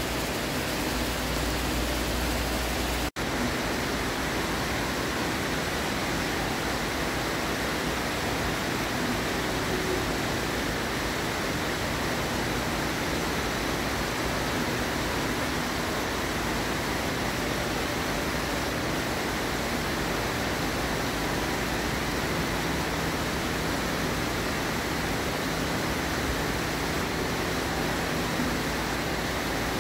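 Steady rushing indoor background noise, even and unchanging, with a momentary dropout about three seconds in.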